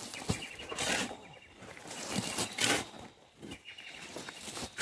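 A shovel digging into dry dirt: several separate strokes, each a scrape of the blade into the soil and a scatter of thrown earth.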